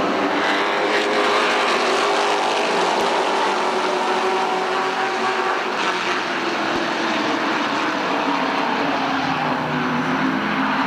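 Several late model stock cars' V8 engines running at racing speed around a paved oval track, a steady, dense engine drone whose pitch sags and climbs gently as the cars circle.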